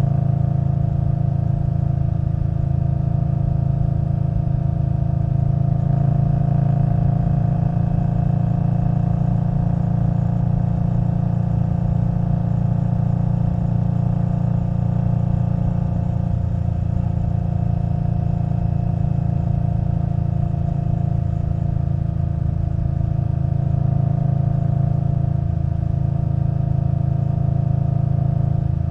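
Indian Scout Bobber Twenty's V-twin engine through a Vance & Hines Twin Slash exhaust, running at a steady cruise. Its pitch dips a little about halfway through and rises again.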